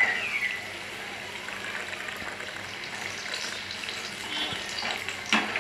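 Gram-flour-battered potato slices sizzling steadily as they deep-fry in hot oil, while a wire-mesh skimmer turns them in the pan, with a sharp knock of the skimmer near the end.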